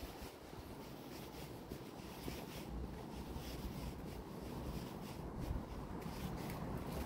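Low wind rumble on the microphone, with faint irregular scuffs and rustles of footsteps and handling.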